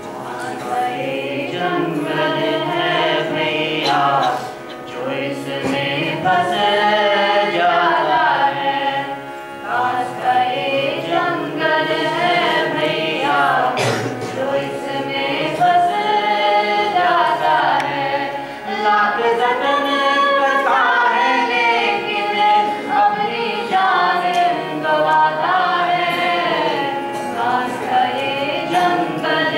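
Music: singing of a wavering Indian-style melody over a steady held drone.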